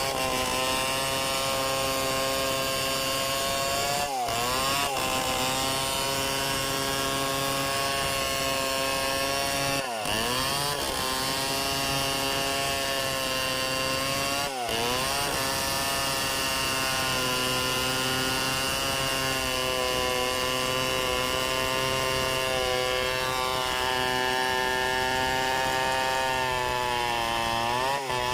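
Two-stroke chainsaw running at high revs while cutting through hardwood. Its engine speed briefly dips and recovers about four times as it loads up in the cut.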